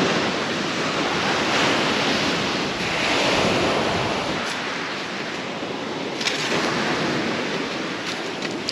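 Surf washing onto the shore, a steady rush that swells and eases every few seconds, with wind buffeting the microphone.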